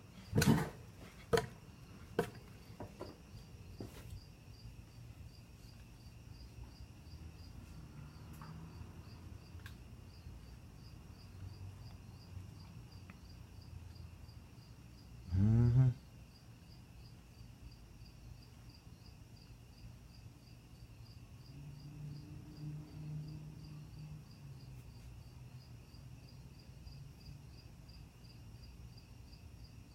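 Hampton Bay Landmark ceiling fan struggling on medium speed with a bad capacitor: a low steady motor hum, with a few knocks in the first couple of seconds as the blades are pushed by hand. A faint high chirp pulses at an even rate throughout, and there is a brief voice-like sound about halfway through.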